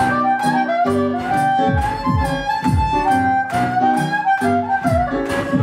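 Amplified harmonica playing a sliding lead melody during an instrumental break of a band's song, over chords and a steady kick-drum beat.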